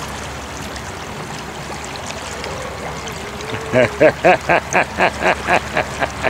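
River water flowing steadily around a wading angler. About three and a half seconds in, a quick run of about ten short pitched calls starts, roughly four a second, louder than the water.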